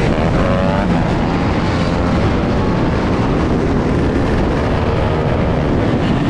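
Motorcycle engine running while riding, its pitch rising and falling with the throttle, under heavy wind noise on the microphone.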